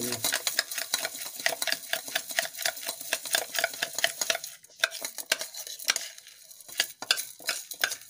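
A metal spoon stirring and scraping dry soft food (grains and seed) mixed with white vinegar inside a stainless steel cup: rapid clinking scrapes that thin out to scattered strokes about halfway through.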